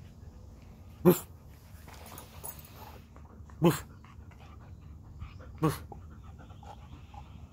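Alaskan husky giving three short, sharp huffs about two seconds apart.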